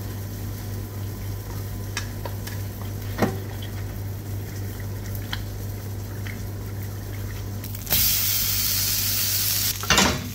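Penne and tomato sauce sizzling in a hot pan over a gas burner while a wooden spatula stirs and the pan is tossed, with scattered clicks of the spatula against the pan. About eight seconds in, a loud hiss lasts nearly two seconds, followed by a brief clatter.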